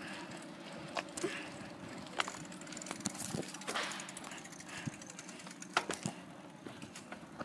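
Bicycle ridden over tarmac: steady tyre noise with scattered sharp clicks and rattles.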